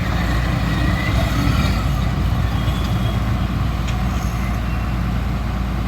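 Tata Hitachi EX200LC Super Plus excavator's diesel engine running steadily, a continuous low rumble.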